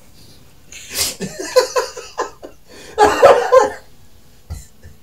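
Stifled laughter and strained throat noises from someone struggling to swallow a mouthful of food. A breathy burst and a run of short huffs come first, then a louder outburst about three seconds in.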